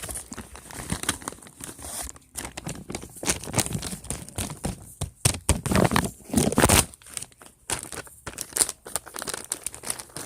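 Irregular crinkling and crackling of something being handled, in a dense run of sharp crackles that is busiest and loudest around the middle.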